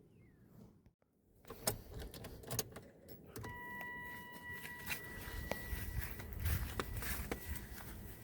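Keys jangling and clicking as the car key is handled. About three and a half seconds in, a steady high electronic warning tone from the car's dash starts. It is strongest for a couple of seconds, then carries on faintly under low handling knocks.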